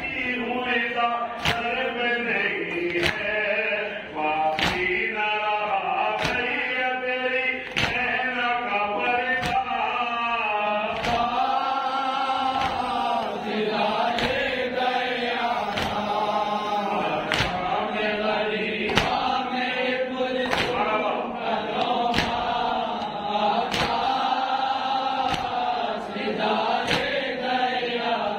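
Male voices chanting a noha, a Shia mourning lament, in a slow melodic line with the group joining in. Sharp strikes land in time about every one and a half seconds, typical of matam, the mourners beating their chests.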